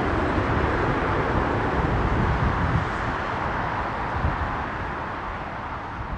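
Four-engined Boeing 747-400F freighter climbing away after takeoff: the steady rumble of its jet engines, slowly fading as it recedes.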